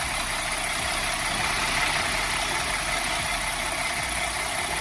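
Kenworth T680 semi truck's diesel engine idling steadily, heard as an even, hissy running noise.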